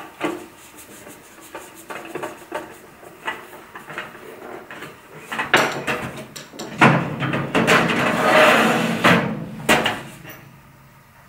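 Steel Helmer drawer and screwdriver being handled during assembly: small clicks and knocks, then about two seconds of louder sheet-metal rubbing and scraping starting around seven seconds in, ended by a sharp knock.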